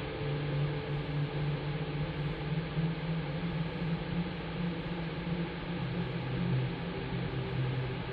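Dark ambient drone: a steady hissing wash of noise over low sustained tones, with no beat. The low drone shifts to a lower pitch about six seconds in.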